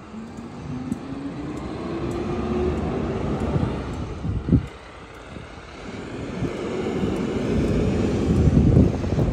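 Garbage truck's diesel engine accelerating, its note rising steadily over about three seconds. A sharp thump comes about four and a half seconds in, then another vehicle's noise grows louder as it approaches.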